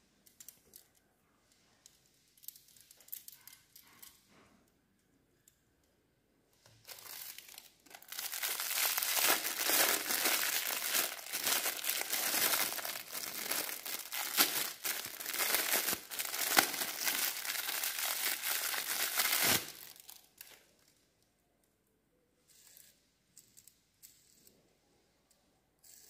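Clear plastic packaging bag crinkling loudly as it is handled and pulled off a small plastic toy, for about twelve seconds in the middle, with lighter rustling and handling before and after.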